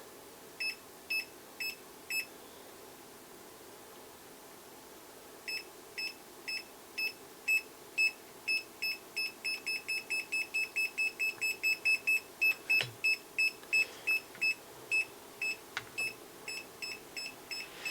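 Digital multimeter in EF (non-contact voltage) mode beeping in short, high-pitched beeps. The beeps come in a few slow ones, stop, then start again and quicken to a rapid run before slowing, as the meter picks up a stronger and then weaker electric field from live wiring.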